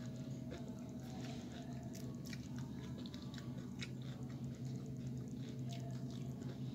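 Crisp tortilla chips of nachos being bitten and chewed close up: irregular crunches all through, over a steady low hum.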